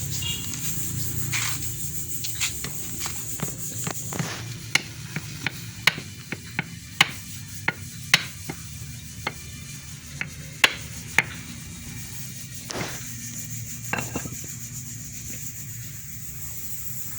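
A string of light, irregularly spaced clicks and knocks, a dozen or more, mostly in the middle of the stretch, as hard parts are handled and tapped at a workbench. A steady hiss runs underneath.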